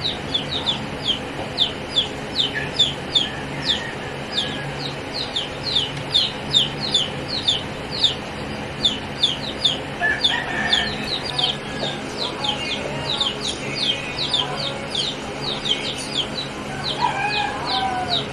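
Chicks peeping over and over: short, high, falling peeps at about three a second.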